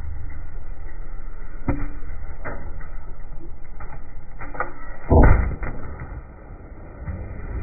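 Large firecracker exploding under a brick: a short, low boom about five seconds in, with scattered sharp knocks around it.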